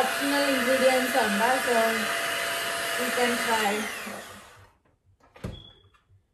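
Electric hand mixer running with its beaters in a steel bowl of cake batter, its pitch wavering as it works the mix, then switched off about four seconds in and winding down. About a second later there is a single short click.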